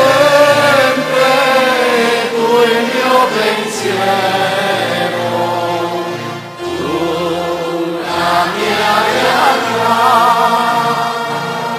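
Church congregation singing the chorus of an Italian hymn, long held notes over a steady low instrumental accompaniment.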